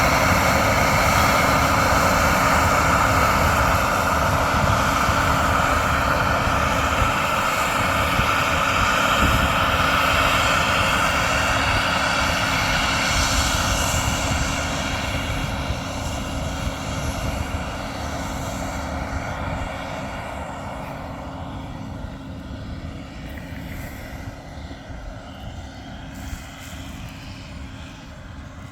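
Combine harvester running with a steady engine and fan whine, loud at first, then fading gradually from about halfway through as it moves away.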